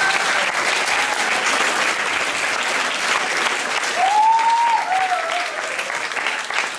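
Audience applauding steadily, with one drawn-out whoop that rises and falls about four seconds in.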